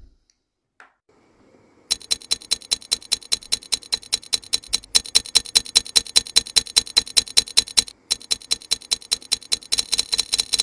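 Glass lid rattling on a steel saucepan at a rolling boil, the steam lifting it so that it clicks about five times a second. The rattle starts about two seconds in and breaks off briefly twice.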